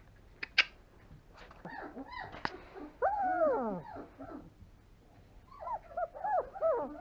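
Three-week-old German Shepherd puppy whimpering: a few faint calls, then from about three seconds in a run of high whines that arch up and down in pitch, and another cluster of short whines near the end. A single sharp click about half a second in.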